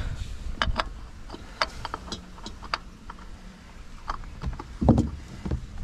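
Scattered light clicks and taps of a spin-on oil filter being threaded on by hand, with one louder knock about five seconds in.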